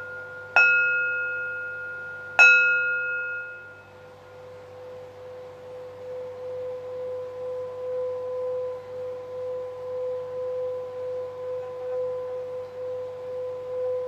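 Singing bowl struck twice, about half a second and two and a half seconds in, each strike ringing out. From about four seconds in it is played around its rim, giving one steady tone that wavers gently in loudness.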